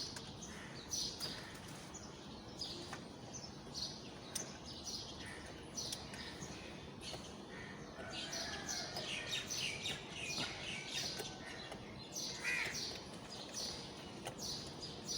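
Birds chirping repeatedly in the background, with a few faint clicks as a spark plug is tightened by hand with a socket and rod.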